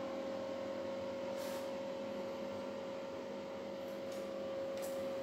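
Steady hum with one constant mid-pitched tone over a soft background hiss, with a few faint light ticks.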